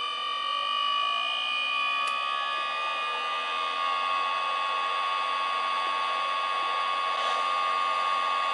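Sound decoder in an HO-scale model of a DB Br152 electric locomotive, playing the loco's standing sounds through its small speaker: a steady high electrical whine with a rushing fan-like noise that builds about two seconds in and then runs on evenly.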